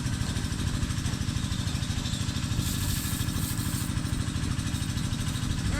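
A small engine running steadily, with a brief hiss about three seconds in.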